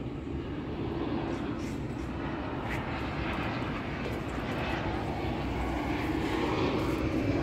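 Steady rumble of an airplane's engines passing overhead, with a low hum, growing slowly louder.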